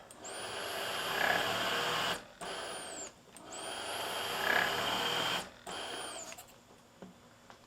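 Newport HT70 piston-driven transport ventilator cycling two breaths: each is a rush of air with a high whine that rises and falls, followed by a shorter puff of air. The sound fades near the end.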